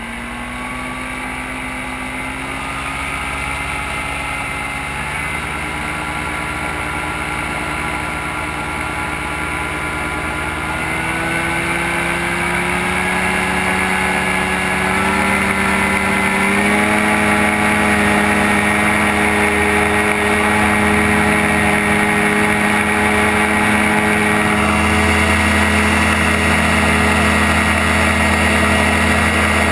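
Gyrocopter engine running as it taxis, its pitch climbing slowly and evenly for about the first two-thirds, then holding steady. A deeper rumble joins near the end, and the sound grows gradually louder throughout.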